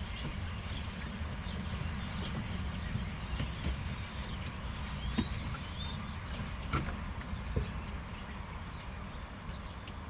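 Steady low outdoor rumble with faint high chirping, and a few light clicks and taps from the ignition switch clamp being worked back onto its shaft.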